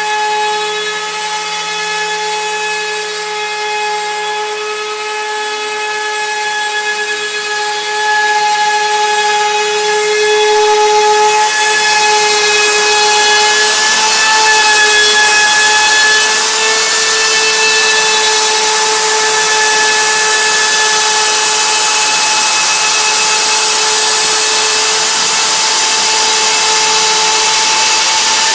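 CNC router spindle whining at a steady pitch as its end mill rough-cuts a violin top from a wooden plate. The cutting noise grows louder about 8 seconds in and again about 11 seconds in.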